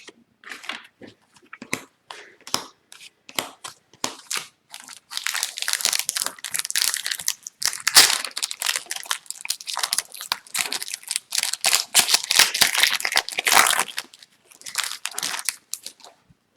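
Wrapper of an Upper Deck hockey card pack being crinkled and crumpled by hand: scattered crackles at first, then a dense run of crinkling through the middle, easing off with a few crackles near the end.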